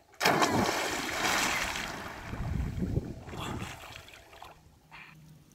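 A person plunging feet-first into a lake off a dock: a sudden loud splash, then water churning and sloshing that fades over a few seconds, with a couple of smaller splashes as he surfaces and swims.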